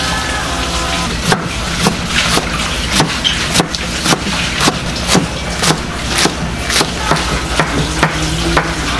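Kitchen knife chopping through bunches of green onions onto a plastic cutting board, in even strokes about two a second starting about a second in, over a steady low hum.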